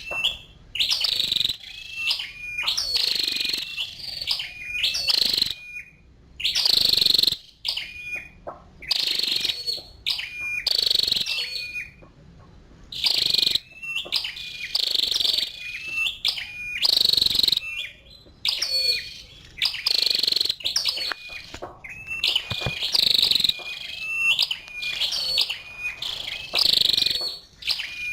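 A female flowerpecker (chim sâu đầu đỏ) calling: sharp, high chips and short twittered notes repeated about once a second, with a brief pause near the middle.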